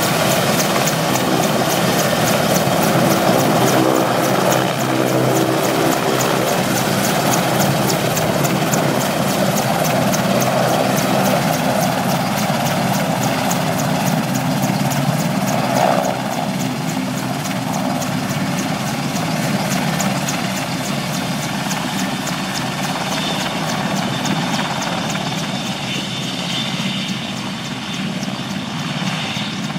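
RAF AgustaWestland AW101 Merlin helicopter taxiing with rotors turning: the steady whine of its three turboshaft engines under a rapid, even beat from the rotor blades. It grows a little quieter toward the end as it moves away.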